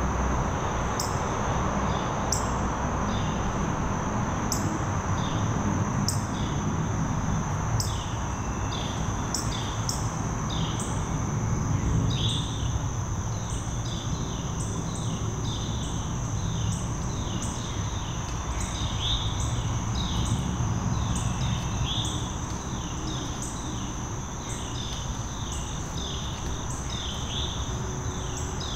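Insect chorus in woodland: a steady high-pitched insect drone, with many short falling chirps repeating over it and a low rumble beneath.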